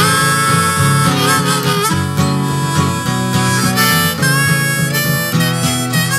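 Background music: an instrumental break in a blues-style song, a harmonica lead with bending notes over strummed acoustic guitar.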